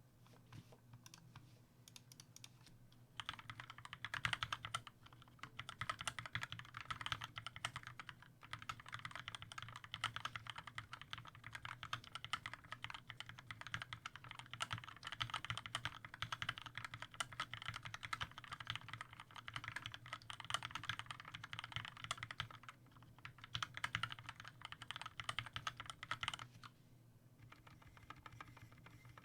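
Typing on a Skyloong GK61 mechanical keyboard with lubed Gateron Yellow linear switches in black housings and PBT keycaps. There are a few scattered key presses at first, then about three seconds in a fast, continuous run of keystrokes with brief pauses, thinning back to scattered presses near the end.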